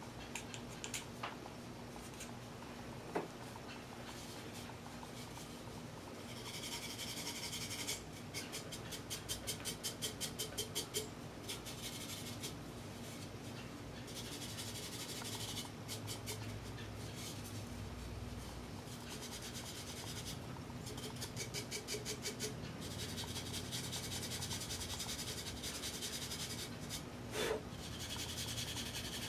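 Unfired clay greenware being rubbed smooth with a small green abrasive pad, in spells of quick back-and-forth scrubbing strokes that start about six seconds in. Before that there is only light, sparse scratching from a fine pointed tool.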